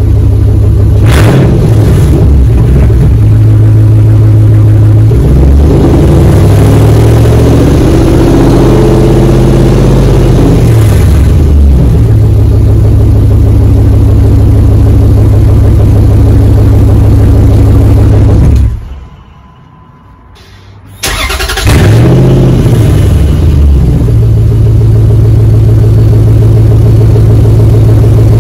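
2004 Dodge Ram 1500's 5.7 L Hemi V8 exhaust, loud through a straight pipe with the muffler and resonator deleted: idling, blipped twice, then revved up and down for several seconds before settling back to idle. About two-thirds of the way in it cuts out for about two seconds, then starts again with a rev and settles back to a steady idle.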